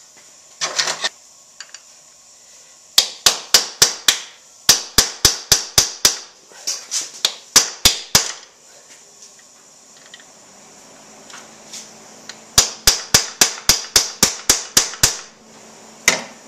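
Hammer blows on a steel punch driving at a seized, rust-welded bolt in a Kawasaki KX250's rear shock linkage. Rapid sharp metallic strikes, about four to five a second, come in four runs with pauses between them, and a short clatter of tools comes about a second in. The bolt is not budging.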